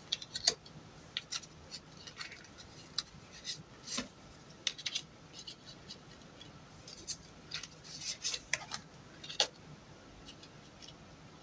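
Tarot cards being handled and laid out: a scattering of light, irregular clicks and snaps.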